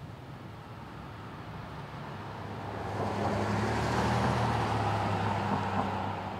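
A car driving past, its engine hum and tyre noise swelling from about three seconds in, peaking soon after, and fading toward the end.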